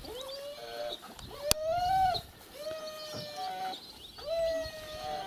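Shepherd-type dog whining in a string of long, drawn-out whines, eager and impatient while kept sitting and waiting. A single sharp click about a second and a half in.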